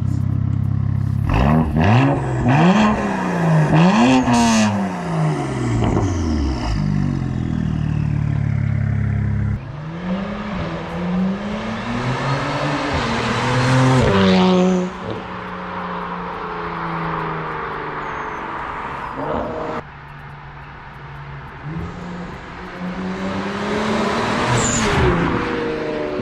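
BMW E92 335is twin-turbo 3.0-litre straight-six on a full straight-pipe exhaust with no cats, resonator or muffler, idling and then revved in repeated quick blips that rise and fall. It settles back to idle between bursts of revs, with a couple of abrupt cuts in the sound.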